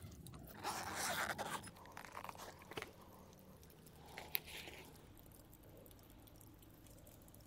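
Zipper of a fabric tool case being pulled open, a scratchy run lasting about a second, followed by scattered light clicks and rustles, with one sharp click, as the case is opened out and a chisel is handled.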